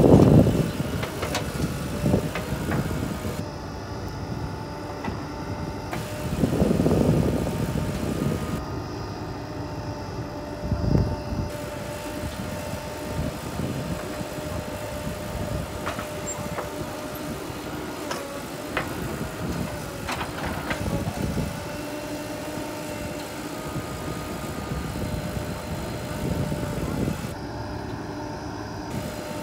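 Diesel engine of a JCB 3DX backhoe loader running steadily while it digs and loads soil into a tractor trolley, with several louder rumbling bursts and a few sharp clanks.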